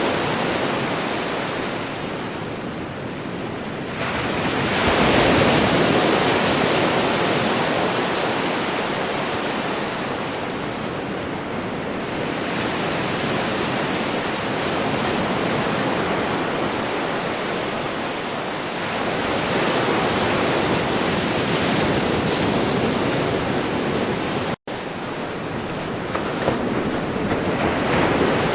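Sea waves washing onto a shore: a continuous hiss of surf that swells and eases slowly as each wave comes in and draws back. A split-second break in the sound comes near the end.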